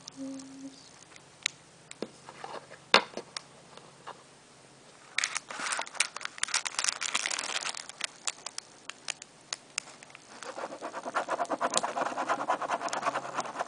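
A coin scraping the coating off a scratch-off lottery ticket: a few light taps and clicks at first, short bursts of scraping about five seconds in, then rapid, steady scratching from about ten seconds in.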